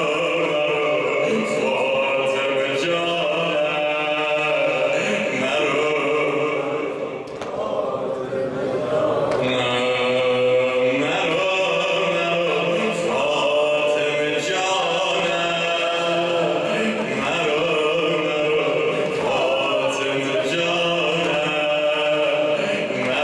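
A male reciter (maddah) chanting a Persian mourning elegy (nohe) in long, melismatic held notes, with a short break for breath about seven seconds in.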